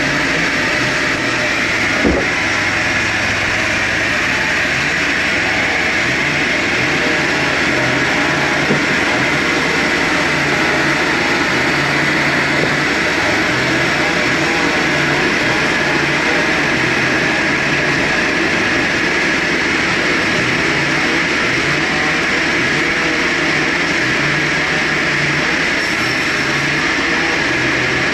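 Sawmill machinery running steadily: a loud, continuous mechanical noise with a low, pulsing engine note underneath. There is a single sharp knock about two seconds in.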